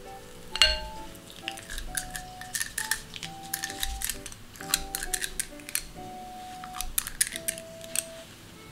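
Background music with soft melodic notes, over a run of short clicks and clinks from a stainless-steel cookie scoop knocking against a glass bowl and a metal baking tray as cookie dough is scooped out. The sharpest click comes about half a second in.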